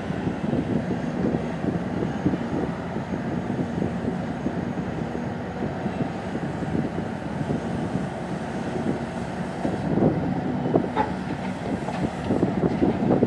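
Heavy diesel engines of a Bucyrus RH120E mining excavator and its haul trucks running with a steady low hum, with a few sharp clanks about ten to eleven seconds in.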